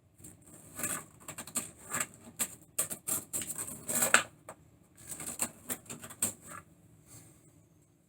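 Pencil marking on the wooden door, with quick irregular scratching strokes in uneven bursts. The strokes are loudest about four seconds in and ease off briefly near the end.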